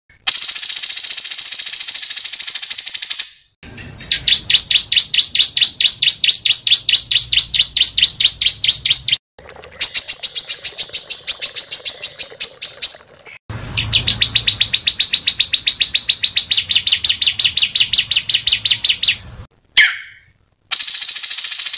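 Small songbird singing long phrases of rapid, high-pitched repeated notes, about eight to ten a second. Each phrase is several seconds long and cuts off abruptly before the next begins.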